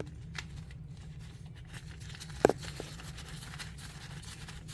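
A few small clicks and one sharp metallic knock about halfway through as the gearbox drain plug is handled and set back in, over a low steady hum.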